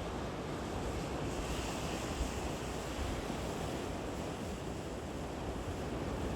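Wind-driven ocean surf roaring and breaking, with strong wind buffeting the microphone as a steady low rumble.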